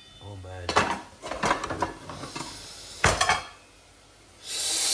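Kitchen utensils and pots clattering as someone rummages for a stirring spoon: a run of clinks and knocks, the loudest about three seconds in, then a short burst of hissing noise near the end.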